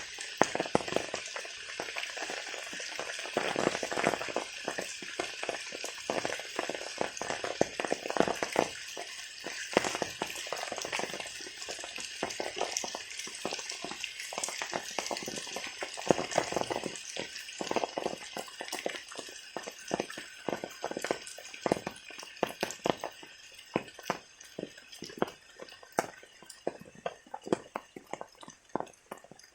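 Rain falling steadily, a constant hiss with many close drops and splashes pattering on surfaces. The rain eases toward the end, the hiss fading and the drops growing sparser.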